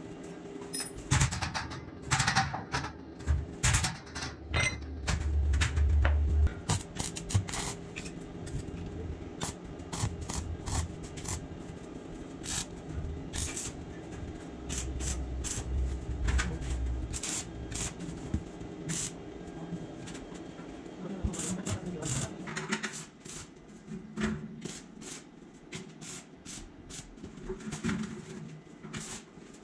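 Irregular sharp clicks and knocks of hand work on a steel stair railing being installed, with two stretches of low rumble in the first half.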